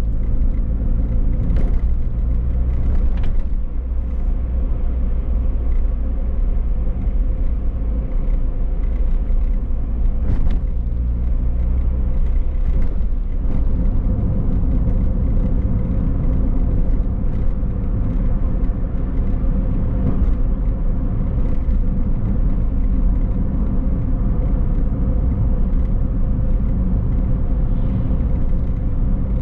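A car driving along: steady engine hum with low road and tyre rumble. A few brief clicks or knocks come through now and then.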